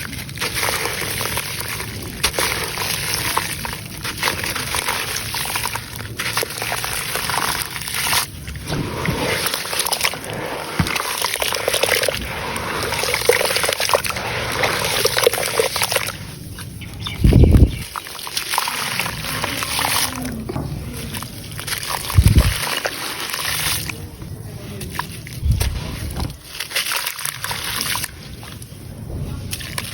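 Grainy sand-cement crumbling into water in a clay pot: a dense crackling, fizzing hiss of grains and lumps breaking up and splashing. Three deep, loud thuds come about 17, 22 and 25 seconds in.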